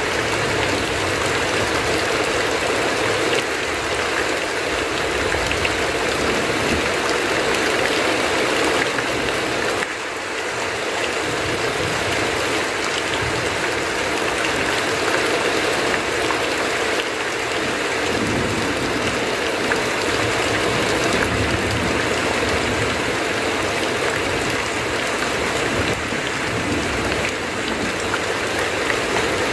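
Heavy rain falling steadily on a tin roof, with runoff streaming off the roof edge; the loudness dips briefly about ten seconds in.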